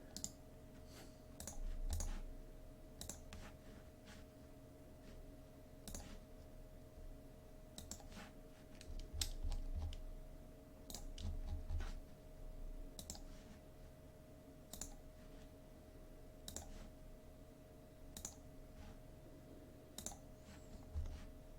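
Computer mouse clicking: irregular single clicks every second or two, with a few dull low thumps, over a faint steady hum.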